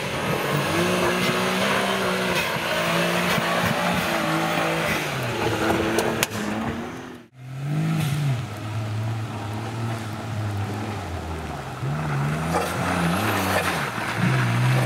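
Suzuki Jimny engine revving up and down, with a sudden break about halfway through. After the break an engine runs at lower revs, then rises again near the end.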